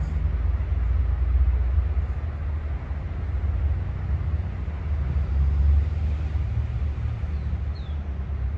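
Steady low outdoor rumble, with a few short, high chirps falling in pitch near the end.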